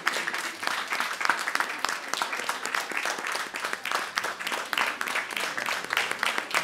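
A small audience applauding: many people clapping their hands at once in a dense, steady patter.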